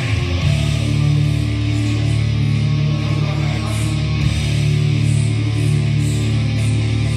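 Music with guitar and long held low notes, at a steady loud level.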